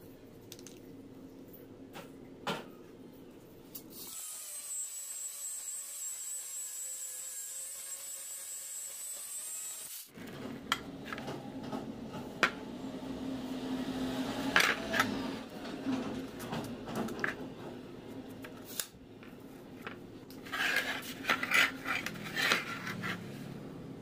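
Steel rod and bent flat-bar latch pieces handled and shifted against each other and a board: scattered light clicks, taps and rubbing.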